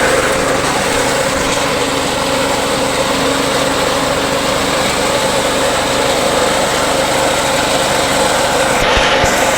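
Small engine of a reaper machine running steadily at an even speed.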